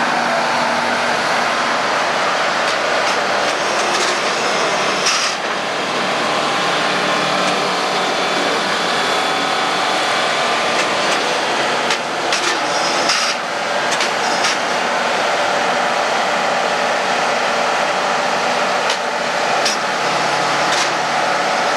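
Heavy log-yard machinery running steadily, heard through worn VHS audio, with a few short knocks and clatters.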